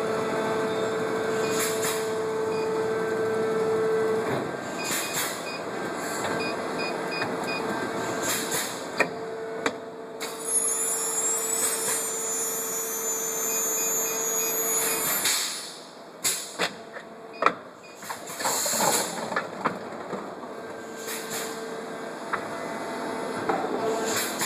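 Plastic bottle blow moulding machine running: a steady machine hum with a tone that comes and goes, and hissing blasts of compressed air about every three seconds, with a few sharp mechanical clicks in the second half.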